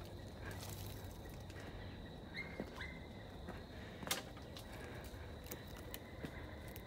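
Footsteps and rustling through dry leaf litter, grass and twigs, with scattered sharp clicks; the loudest click comes about four seconds in. Two brief high chirps sound about two and a half seconds in.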